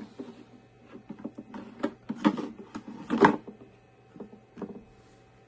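Plastic humidifier parts being handled and fitted together: irregular clicks and knocks, the loudest about two and three seconds in.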